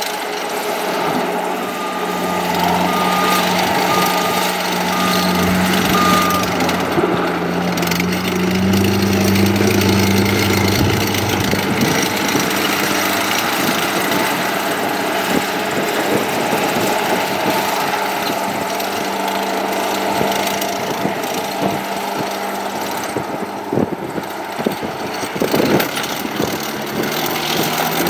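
2010 Terex PT60 skid steer's diesel engine running steadily, with its backup alarm beeping five times about a second apart early on while it reverses. The engine picks up speed for a few seconds a little later, then settles back.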